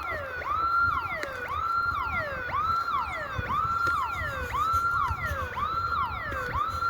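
Electronic alarm siren going off continuously. Its pitch sweeps up, holds briefly and drops back down about once a second, over and over.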